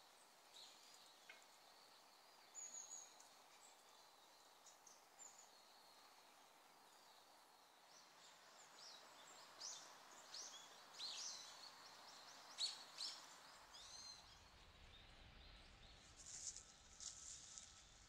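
Faint, high-pitched short calls of small songbirds, sparse at first and busier in the second half, many of them quick downward-sliding notes.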